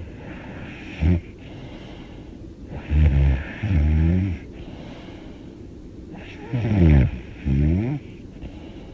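A young woman snoring loudly through an open mouth in her sleep. There is a short snort about a second in, then two buzzing snoring breaths about three and a half seconds apart, each in two parts.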